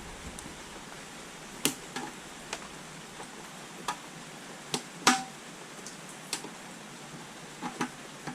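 Scattered light metallic clicks and taps from hand tools and fasteners during oil pan installation. There are about a dozen at irregular intervals, and the loudest, about five seconds in, rings briefly.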